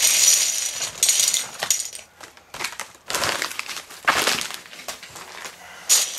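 Hundreds of plastic LEGO 2x4 bricks clattering as they pour out of a padded paper mailing bag onto a heap on carpet, the pour dying away about two seconds in. After that come a few short rattles and rustles as the bricks are shifted by hand and the bag is handled.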